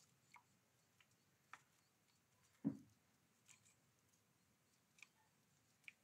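Faint scattered ticks and taps, about eight in all, with one louder dull knock a little under three seconds in: a great tit's feet and bill on a plastic feeding tray and water dish.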